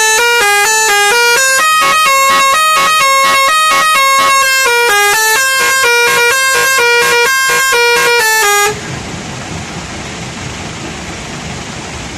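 Multi-tone musical bus horn fitted to a Leyland Cargo tipper truck, loudly playing a tune of held notes that step up and down in pitch. It cuts off abruptly a little under nine seconds in, leaving a steady, quieter vehicle noise.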